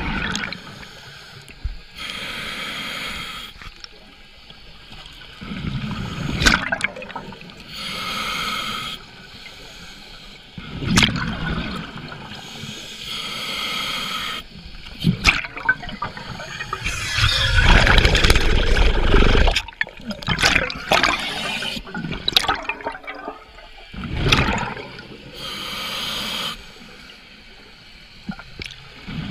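Scuba regulator breathing underwater: a hissing draw on each inhale, then a bubbling gush of exhaust air on each exhale, repeating about every five seconds. A longer, louder rush of bubbles comes about halfway through.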